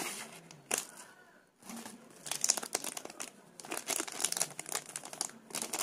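Plastic packaging and bubble wrap crinkling and rustling as they are handled and opened: a short crackle under a second in, then heavier bursts of crinkling from about two seconds in, with another run near the end.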